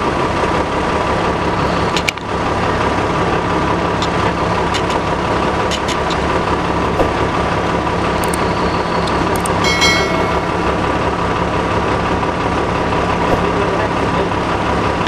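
Large engine idling steadily, most likely the excavator working beside the stuck SUV, with a brief high-pitched squeal about ten seconds in.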